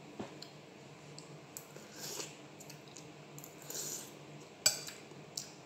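Eating macaroni soup with a metal spoon: a couple of soft slurps and mouth noises, then one sharp click near the end.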